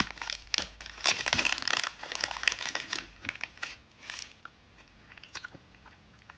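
Crinkling plastic wrapper of a foot-shaped candy being handled. The crackling is dense for about the first three seconds, then thins to scattered crackles that grow quieter near the end.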